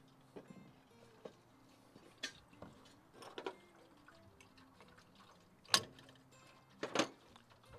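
Scattered clicks and knocks from hands and tools working in an engine bay, two louder knocks near the end, over faint background music.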